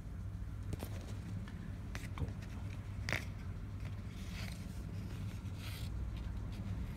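A speaker protection relay from a Sansui AU-D607F amplifier handled by hand, its armature pushed by a fingertip with the return spring removed: a few light clicks, the sharpest about three seconds in, and short scrapes, over a steady low hum.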